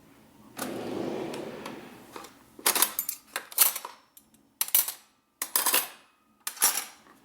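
Kitchen drawer sliding open on its runners, followed by a run of sharp rattles and knocks as it is worked and its contents shift.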